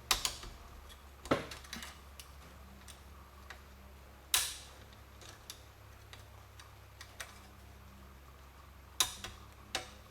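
Scattered sharp metallic clicks and taps, about five of them spread unevenly, as a screwdriver pries at a window trim clip on a screw-type trim stud in sheet metal; a steady low hum runs underneath.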